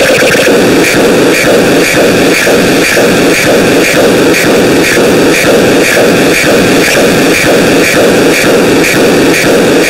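Loud, harsh static-like noise that pulses evenly about twice a second.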